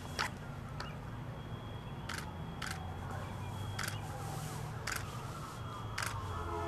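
Steady low rumble of wind and camera handling, broken by about six sharp clicks at irregular intervals, like a camera shutter firing.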